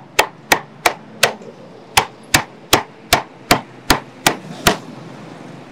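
Heavy cleaver chopping roast pork on a thick round wooden chopping block: about a dozen sharp chops, roughly three a second, with a short pause a little over a second in, stopping shortly before the end.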